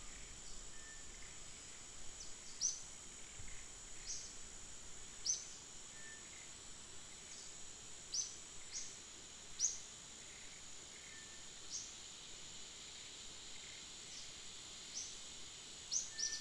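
Outdoor ambience: a steady high insect drone, with short, high chirps that sweep downward, coming every second or so at irregular spacing, typical of small birds calling.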